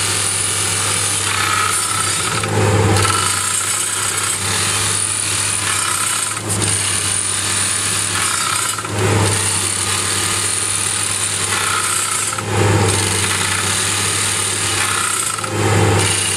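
SOOSAN STD14E top-hammer drill rig drilling rock: the TD45 hydraulic rock drill (drifter) hammering steadily over the rig's running engine. Four louder surges come about three seconds apart.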